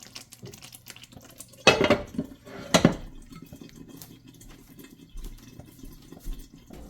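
Cookware clattering: two loud knocks of a metal pot, lid or utensil about a second apart, with faint kitchen handling noise between them.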